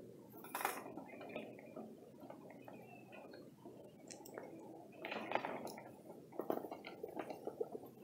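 Footsteps crunching slowly on a gravel driveway, with light irregular clicks and clinks; the crunching gets louder and busier about five seconds in.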